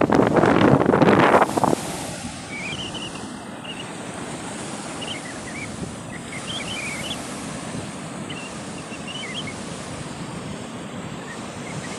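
Sea waves washing on the shore, loud with wind on the microphone at first, then dropping suddenly to a steadier, quieter surf wash a little under two seconds in. Faint high chirps come and go over the surf.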